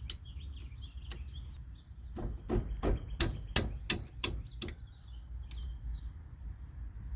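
Ratcheting wrench working a brake caliper bolt loose: a run of sharp metallic clicks, about three a second, starting about two seconds in and lasting a couple of seconds. Birds chirp in the background.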